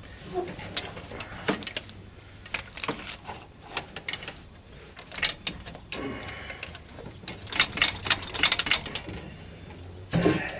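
Scattered metallic clinks and knocks from hands and tools working on a small-block Chevy V8's loosened cylinder head, with a quick run of rattling clicks about three quarters of the way through.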